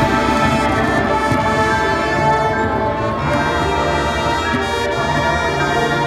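High school marching band playing its field show, the brass section holding full, sustained chords.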